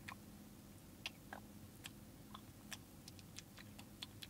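Near silence: faint, irregular small clicks, two or three a second, over a low steady hum.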